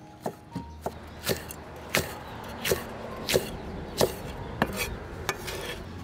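Cleaver chopping red chillies on a wooden chopping board: a run of about ten sharp knocks, roughly one every two-thirds of a second.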